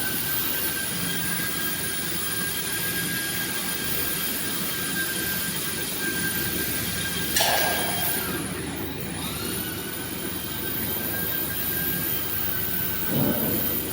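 VMC1270 CNC vertical machining center running under test: a steady high whine from the spindle, which drops in pitch and climbs back up a little past halfway as the speed changes. A short burst of noise comes about seven seconds in and again near the end.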